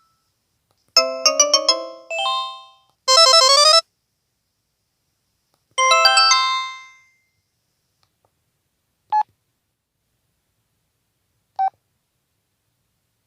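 Audiovox CDM-8900 cell phone's speaker playing short electronic alert tones one after another, with silence between them. First a quick run of notes about a second in, then a dense rapid arpeggio, a fading chime about six seconds in, and finally two single short beeps.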